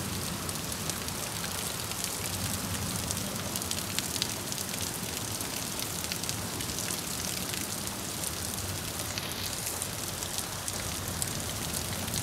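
Heavy rain falling in a storm: a steady hiss with a dense scatter of small drop hits.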